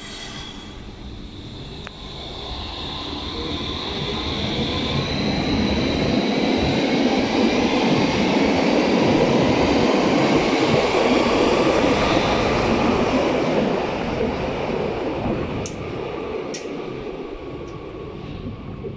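A Berlin U-Bahn train pulling out of the station and accelerating away. An electric whine rises in pitch, and the rumble of wheels on rails swells to a peak as the cars pass, then fades as the train runs into the tunnel. There are a couple of sharp clicks near the end.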